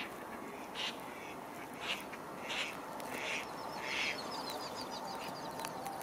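Ducks calling on a river at night: a series of about five harsh quacks, roughly one every two-thirds of a second, then a quick run of high chirps, over a steady background hiss.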